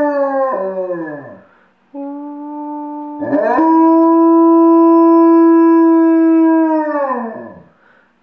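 Alaskan Noble Companion Dog howling: a long howl tails off in falling pitch about a second in, then a second howl starts low, steps up to a higher, louder held note, and slides down and fades near the end.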